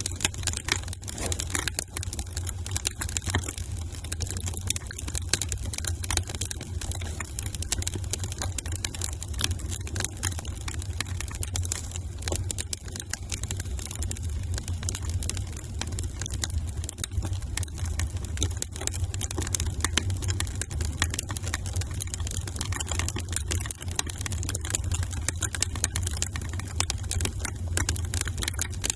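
Wood fire in a fireplace crackling, with frequent irregular pops and snaps over a steady low rumble of the flames.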